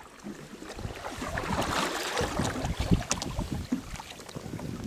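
Water splashing and sloshing around sea kayaks as they are paddled, with sharp splashes of paddle blades, while wind rumbles on the microphone. It builds from about half a second in and is loudest in the middle.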